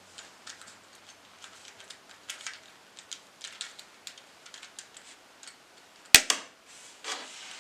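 Small plastic clicks and clacks of a Rubik's cube being handled and turned, coming irregularly, then a single sharp knock about six seconds in.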